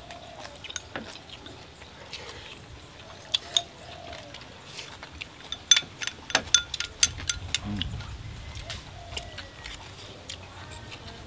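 Chopsticks and spoons clicking against porcelain bowls and plates while eating: a scatter of sharp clinks, thickest around the middle.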